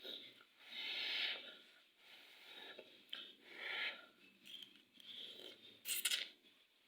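Eating sounds of a person eating Indomie instant noodles close to the microphone: airy slurps and mouth noises in several short bursts, with a sharp click about six seconds in.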